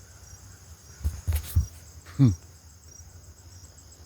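Insects buzzing steadily in the background, with a regular pulse under the buzz. About a second in come a few low bumps and a sharp click, and just after two seconds a short vocal sound that falls in pitch.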